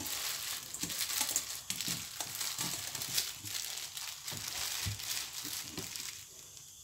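Thin clear plastic bag crinkling with many small crackles as hands wrap it around a lump of sweet and handle it, dying down near the end.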